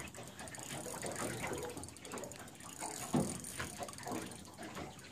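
Spinning fishing reel ticking rapidly as it is cranked against the weight of a large hooked sturgeon.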